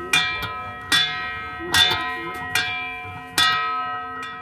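Electronic siren unit playing a bell-strike signal. A chime-like tone sounds about once every 0.8 seconds, six times in all, and each strike rings and fades before the next.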